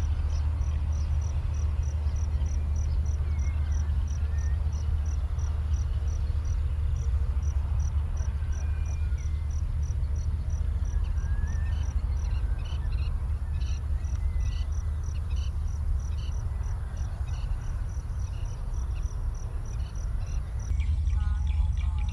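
Insects chirping steadily outdoors, a short high chirp repeating about two or three times a second, over a loud, constant low rumble. A few brief whistled notes come and go.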